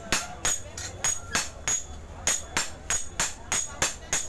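Two smiths hammering a red-hot spear blank on an anvil in turn, hand hammer and sledgehammer, forging the blade. They land about three ringing metal-on-metal strikes a second in a steady rhythm.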